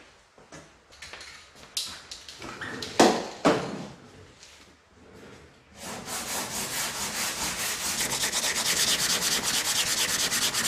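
A few scattered knocks and scuffs, then from about six seconds in, body filler on a steel car body being hand-sanded with a sanding block over a guide coat: fast, even back-and-forth rubbing strokes.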